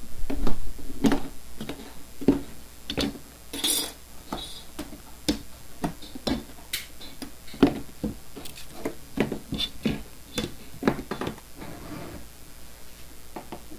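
Leather being cut with a snap-off utility knife against an aluminium straightedge on a cutting mat: irregular knocks and clicks as the ruler and knife are set down and moved, with a short scraping cut a little under four seconds in.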